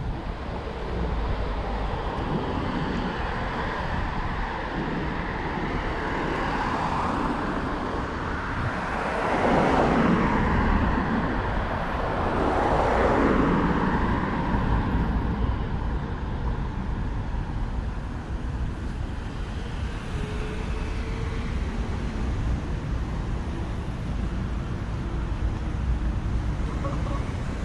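Road traffic along a street, with a steady low rumble and two vehicles passing close by about a third and halfway through, each swelling up and fading away.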